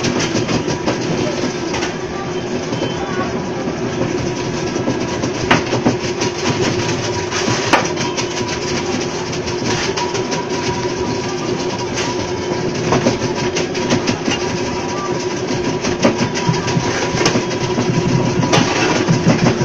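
Electric ice block crusher running with a steady motor hum and a dense, continuous rattle, with a few sharp knocks along the way.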